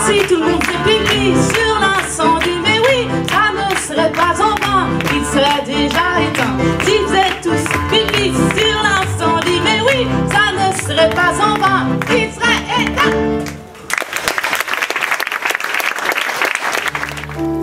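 Live band music led by a diatonic button accordion with double bass, with a wavering melody line on top; it stops about 14 seconds in and the audience applauds for a few seconds.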